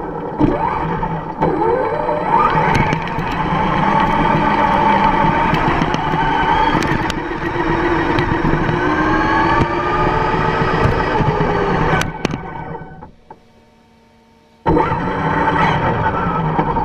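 Traxxas X-Maxx electric RC monster truck driving, heard from a camera mounted on it: the motor and gears whine, rising and falling in pitch with the throttle, over the rumble of the tyres, with a few sharp knocks. About twelve seconds in the sound fades to near quiet for a second and a half, then cuts back in suddenly.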